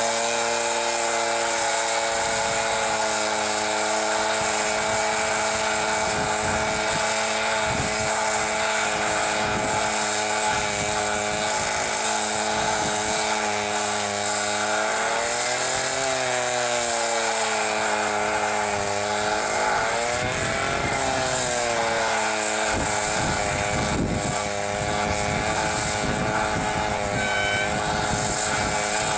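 Engine of a rail welding machine running steadily, with a steady hiss over it. Its pitch sags and recovers twice, as if under load.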